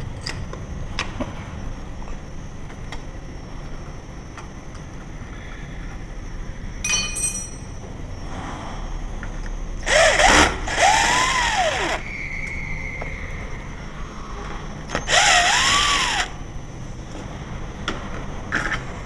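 Cordless drill-driver running twice in short bursts, its motor pitch rising and falling away each time, as it backs out the faceplate screws of a mortice lock.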